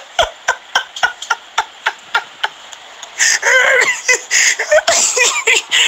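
A man's quiet, suppressed laughter in short breathy puffs, about four a second. About three seconds in, his voice comes in louder.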